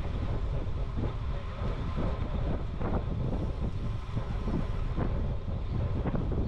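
Wind buffeting the microphone of a camera on a moving bicycle, over a steady low rumble of tyres on the road, with a few small clicks and rattles.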